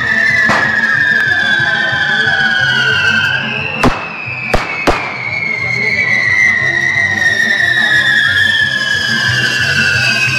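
Correfoc fireworks spraying sparks: long shrill whistles that slowly fall in pitch, two in a row, broken about four seconds in by three sharp firecracker bangs within a second.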